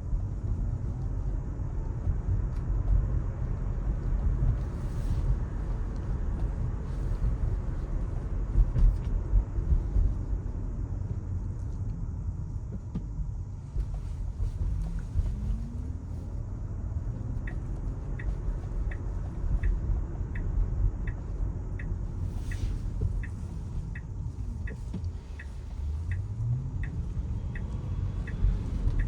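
Tesla electric car driving on city streets: steady low road and tyre rumble, with a low rising whine a few times as it speeds up. From a little past halfway a turn-signal indicator ticks evenly, about one and a half times a second.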